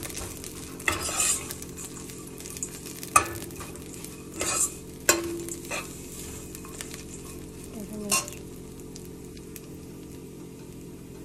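Metal spoon stirring dried gundruk (fermented leafy greens) in a stainless steel saucepan, clinking sharply against the pan several times over a steady sizzle of frying in a little oil. The stirring stops about eight seconds in.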